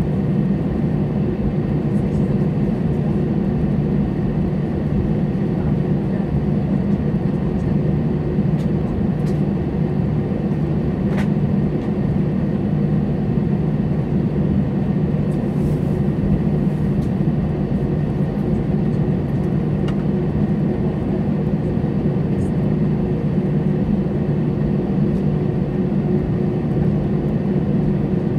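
Airliner cabin noise while taxiing: a steady hum from the jet engines at idle, with a faint steady high whine, heard from inside the cabin.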